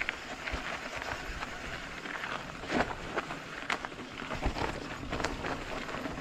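Orbea Occam full-suspension mountain bike rolling down a rocky dirt singletrack: tyres crunching over dirt and stones, with irregular knocks and rattles from the bike as it hits rocks, the loudest about three seconds in.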